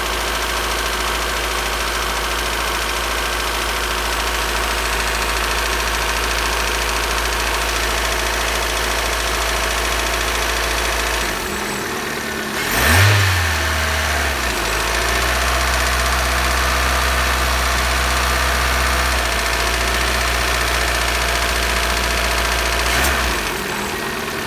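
Citroën C4's TU5JP4 1.6-litre 16-valve four-cylinder petrol engine running at idle with a knock of unknown cause, about 1,200 km after a rebuild and not fully warm at 70 °C. About halfway through it is revved once briefly, then settles back to idle.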